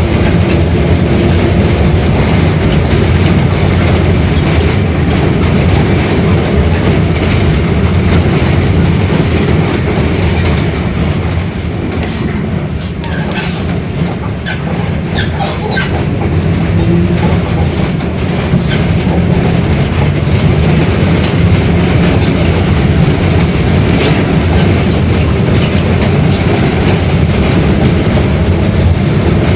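Mercedes-Benz OF-1721 Bluetec 5 bus running, diesel engine and drivetrain under way, with the differential growling, a sign of a worn differential. The sound eases off for several seconds in the middle, with a few rattles, then builds back up.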